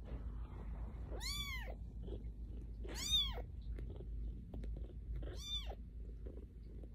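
A tiny orange kitten meowing three times: thin, high cries that rise and fall in pitch, about two seconds apart.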